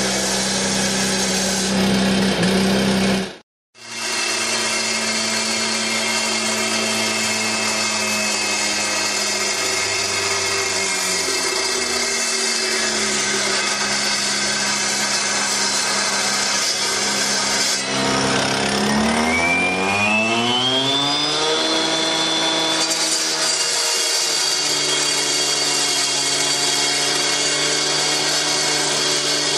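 Gas-powered handheld concrete cut-off saw running steadily as it cuts into a plaster and concrete wall. Its engine pitch climbs about two-thirds of the way through and holds higher. The sound cuts out for a moment a few seconds in.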